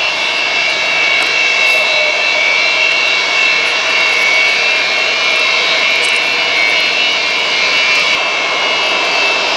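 Antonov An-225 Mriya's six Progress D-18T turbofan engines running at taxi power as the aircraft taxis close by: a loud, steady jet whine with a high tone over a continuous rush.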